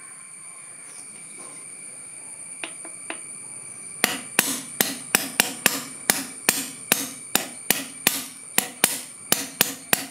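A wooden stick tapping the spring-loaded striker pin of a homemade brass air-gun valve. Two faint taps come first, then from about four seconds in a fast run of sharp knocks, about three a second, each followed by a brief puff of released air.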